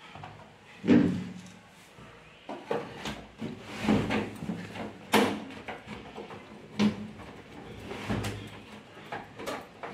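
Plastic water purifier cabinet being handled and shifted on a wooden bench: irregular knocks and thumps, the heaviest about a second in.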